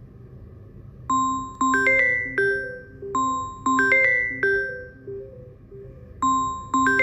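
Samsung Galaxy A34 ringtone starting about a second in: a short melody of bell-like chiming notes, played through twice with a brief pause before it begins again near the end. A faint low hum lies underneath.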